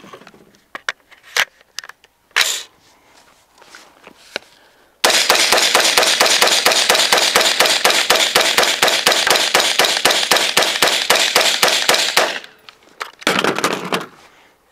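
Palmetto State Armory AR-15 in 5.56 firing a fast string of evenly spaced semi-automatic shots, several a second, lasting about seven seconds from about five seconds in. A few scattered knocks come before the string.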